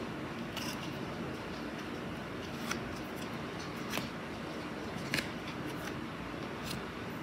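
Upper Deck hockey trading cards being flipped through by hand: about five short, sharp snicks of card stock sliding off the stack, over a steady low room hum.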